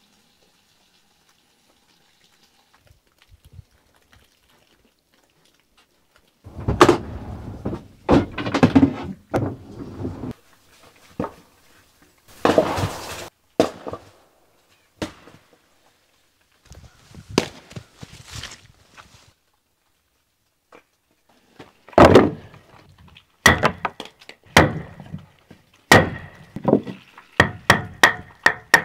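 Firewood being split: heavy axe strikes into a log with cracking and splintering wood, then quicker sharp knocks of a wooden mallet driving a metal splitting blade through kindling, each knock with a short metallic ring and coming about twice a second near the end.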